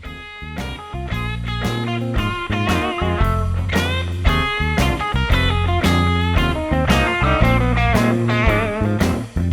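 Background music: a blues-rock tune led by guitar, with a bass line and a steady beat.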